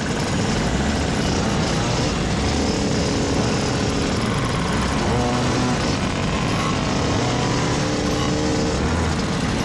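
A large pack of small moped engines running together, several engines revving up and down over one another as the group rides at low speed.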